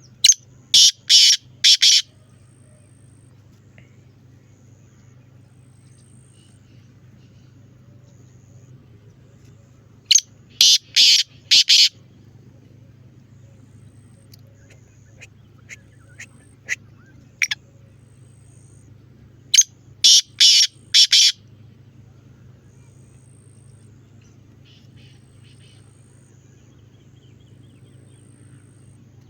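Black francolin (kala teetar) calling: three loud bouts of about five sharp, rhythmic notes, roughly ten seconds apart, with a few single short notes in between. A steady low hum runs underneath.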